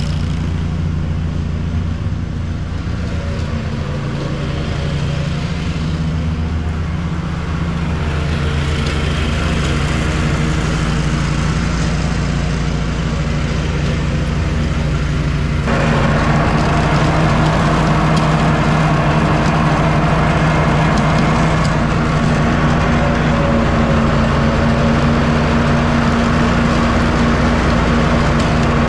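Walker riding mower's engine running steadily under mowing load, heard from across the lawn at first; about halfway through the sound jumps suddenly to louder and closer.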